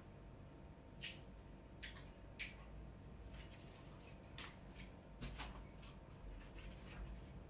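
Faint, scattered rustles and light clicks, about eight in all, from a person moving about and stepping up to a whiteboard, a couple with a soft low thump, over a faint steady hum.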